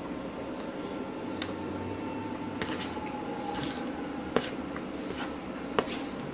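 Eating with a metal spoon: several sharp clinks and scrapes of the spoon against the dish, the two loudest about four and a half and six seconds in, with chewing between, over a steady room hum.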